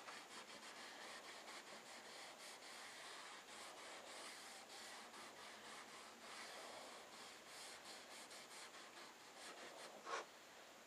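Faint rubbing of a cloth wiping stain onto a wooden cabinet face frame, in short repeated strokes, with one short knock about ten seconds in.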